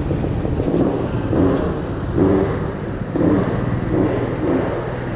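A small vehicle engine revving up and falling back in repeated surges, about one a second.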